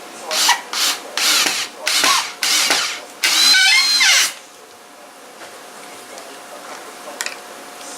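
Tools working the fasteners out of the barrel: about five short rasping, grinding bursts in quick succession, the last and longest carrying a wavering squeal. A single sharp tick follows near the end.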